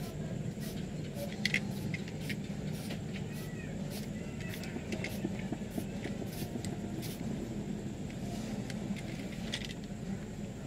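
Scattered sharp plastic clicks and scrapes as the hard plastic casing of a swollen Hubsan Zino LiPo drone battery is handled and pried at, a few clicks louder than the rest about one and a half seconds in. Under it runs a steady low rumble.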